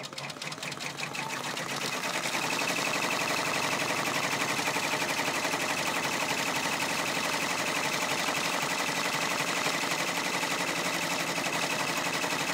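Brother PR655 six-needle embroidery machine stitching, sewing a top stitch around the key fob. It speeds up over the first couple of seconds, then runs at a steady fast rattle of needle strokes.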